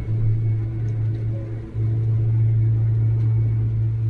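John Deere 6155R tractor on the road, heard from inside the cab: a loud, steady low drone that dips briefly about two seconds in. The driver takes it for noise from the Trelleborg tyres, noisier than Michelins, and rules out four-wheel drive as the cause.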